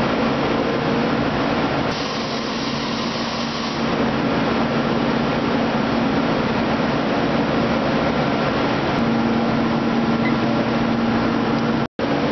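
Steady hum and rush of factory-floor machinery and ventilation, with a low hum tone that grows stronger in the last few seconds and a brief cut-out near the end.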